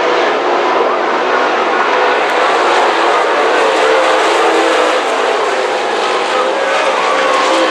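A pack of dirt late model race cars running laps with V8 engines at speed, their engine notes overlapping and rising and falling in pitch.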